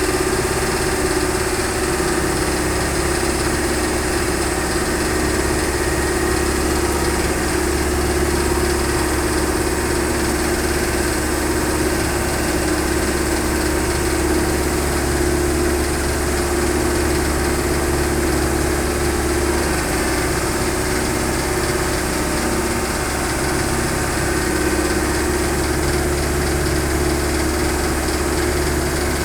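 Heavy diesel engine idling steadily, a constant low hum with no revving or load changes.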